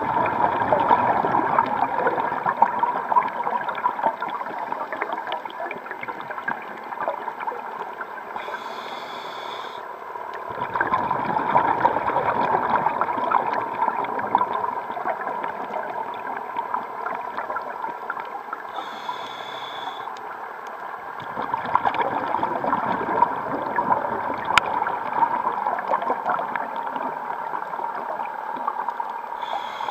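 Scuba regulator breathing heard underwater: long stretches of exhaled bubbles gurgling and crackling, each broken by a short hiss of inhalation, about every ten seconds.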